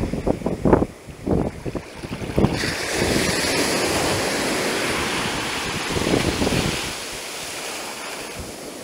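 Surf washing in over bare feet at the water's edge, foam hissing as the wave rushes in about two and a half seconds in and fading as it draws back near the end. Wind buffets the microphone in the first couple of seconds.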